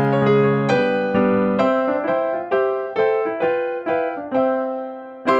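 Background music: a keyboard melody of struck piano notes, each fading away, about two notes a second.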